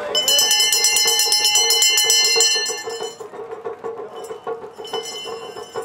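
Rapid, evenly struck metallic ringing, bell- or gong-like, as part of festival float music. It is loud for about three seconds and then carries on faintly over a steady pulsing beat.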